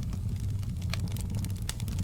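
Wood fire in a fireplace crackling: irregular sharp pops and snaps over a steady low rumble.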